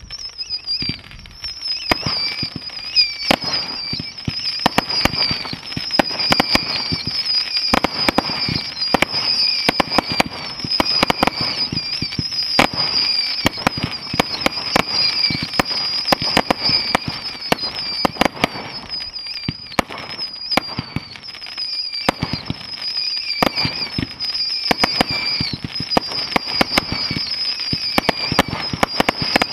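A 100-shot firework cake, The Beast, firing shot after shot in rapid succession: launch thumps and bursting reports with crackle. A continuous wavering high-pitched tone runs over it.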